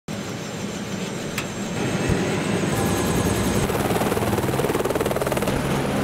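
Helicopter running close by, its rotor beating in a fast, even pulse that grows louder about two seconds in. A single sharp click comes just before that.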